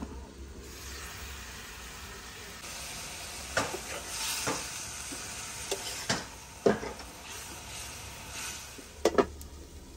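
Kangkong (water spinach) sizzling in a metal wok while a metal ladle stirs it, with a steady hiss and several sharp clinks of the ladle against the pan, the loudest a quick pair near the end.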